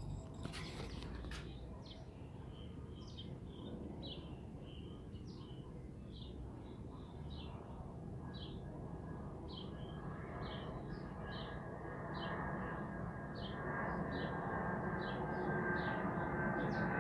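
A small bird chirping over and over, about two short chirps a second, over a low background noise that grows louder in the second half.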